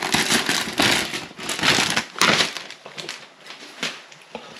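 Thin plastic packaging bag crinkling and rustling as a hydration bladder is handled and taken out of it. The rustling is busiest in the first two seconds or so and thins out to a few light rustles near the end.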